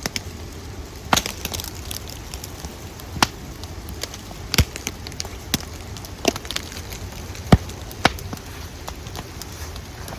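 Pieces of dry dead-standing firewood knocked against a stump to shed snow, giving about eight sharp knocks at uneven intervals. The dry sound of the knocks marks well-seasoned burning wood.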